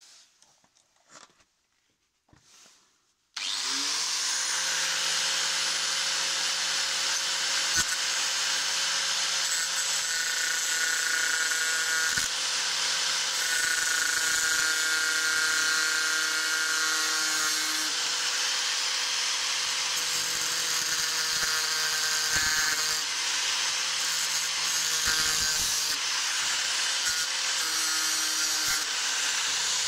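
An electric saw with a circular blade starts about three seconds in, spins up with a brief rising whine and then runs steadily while it cuts into the roof of a miniature model car.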